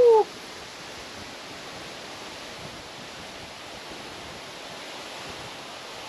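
Waterfall's steady rush of falling water and spray, heard close up.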